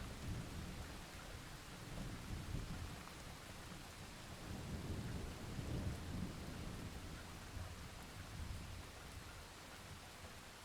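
Thunderstorm: steady rain hissing under rolling thunder, with several low rumbles that swell and fade and die away near the end.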